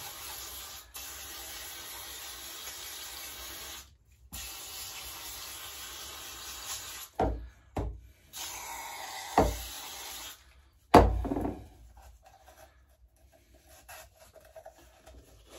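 Aerosol spray can hissing in three long, steady bursts onto a grimy small-engine part, cleaning off the dirt. There are a few short knocks as the part and can are handled between bursts, then quieter handling.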